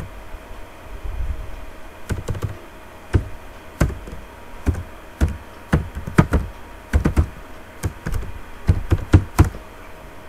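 Computer keyboard typing: irregular keystrokes, singly and in quick runs of two or three, as a login ID and password are entered. A low steady hum runs underneath.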